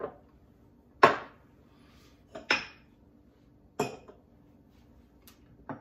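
Glassware being moved and set down on a tiled countertop: four or five sharp knocks and clinks, the loudest about a second in.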